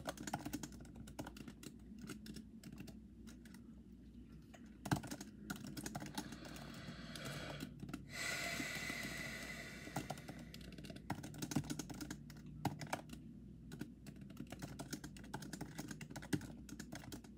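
Typing on a keyboard: irregular runs of key clicks as a few short lines of text are written, with a soft hiss for about two seconds midway.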